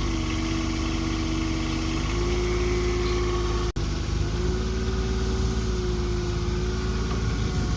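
Construction machine's engine running steadily at an even pitch, cut off for an instant a little before halfway and then running on.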